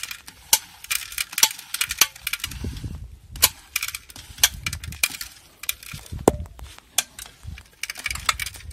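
Homemade hand seeder's seed-metering disc and roller-chain drive turning as its raised drive wheel is rotated by hand: irregular clicks and rattles, with oat seeds dropping into a plastic tray.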